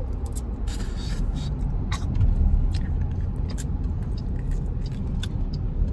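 Car road and engine noise heard from inside the cabin as a steady low rumble, with scattered small clicks and a brief rustle about a second in.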